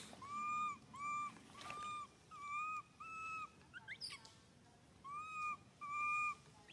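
Newborn baby macaque crying in a string of about seven short, clear coo calls, each about half a second and all at the same pitch. There is a break about four seconds in, filled by a couple of quick rising squeaks.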